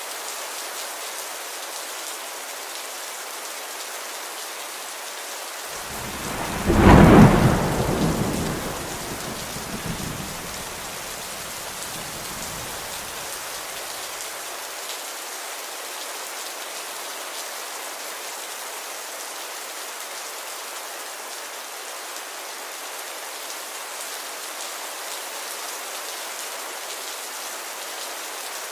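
Steady rain, with a single roll of thunder about six seconds in that swells quickly and rumbles away over several seconds.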